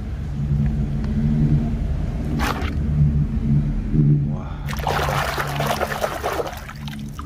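A plastic toy being swished and scrubbed in a basin of muddy water, splashing for about two seconds past the middle. A low steady hum runs underneath.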